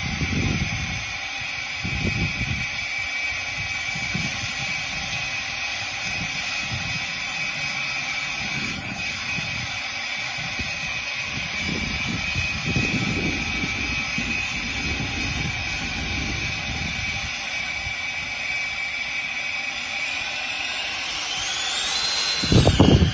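Twin electric ducted fans of a Freewing 80mm A-10 RC jet running with a steady high whine, with gusts of wind on the microphone. Near the end the whine climbs sharply in pitch and falls back again.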